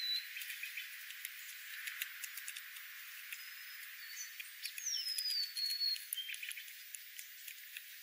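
Small wild birds calling: one clear whistled note that slides down and then levels off, about five seconds in, with a few short high chips around it. Scattered light clicks and ticks run underneath.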